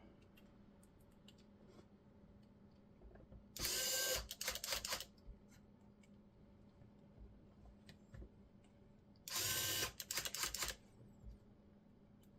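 Electric screwdriver driving screws into the Xbox Series X casing, twice: each time a short steady run followed by a few quick spurts as the screw seats.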